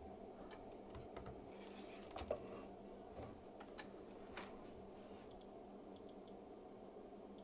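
Faint, irregular clicks from the front-panel buttons and rotary knob of a Rigol DP832 bench power supply as it is adjusted, giving way after about five seconds to fainter, more even ticking as the knob is turned.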